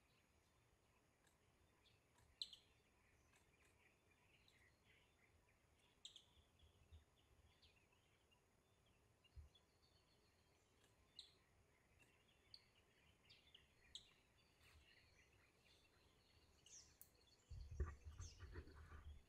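Near silence: faint forest ambience with scattered short, high bird chirps. Near the end a louder low rumbling noise with crackles comes in.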